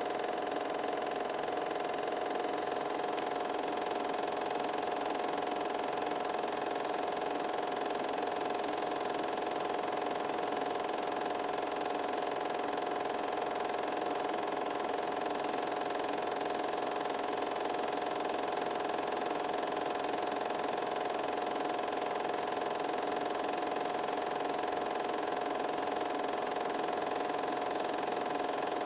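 A steady mechanical whir with a constant hum that never changes.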